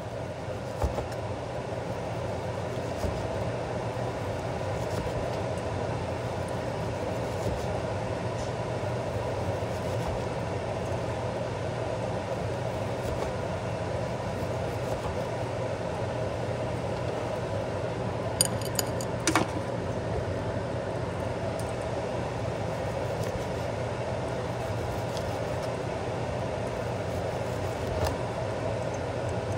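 Steady mechanical hum, with a few faint knocks and a short metallic clink about 18 seconds in as a knife slices raw ribeye on a wooden cutting board.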